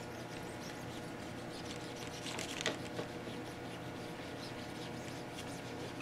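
Cloth wiping over a metal hard drive water block, giving a few soft scrapes about two to three seconds in, over a steady electrical hum.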